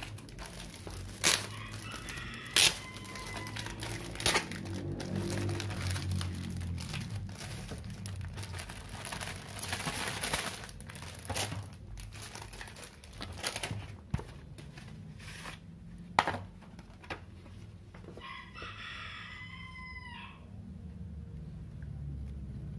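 Clear plastic packaging crinkling and stiff vinyl decal sheets rustling as they are handled, with a few sharp taps and clicks. Near the end a single long pitched call, about a second and a half, drops off in pitch as it ends.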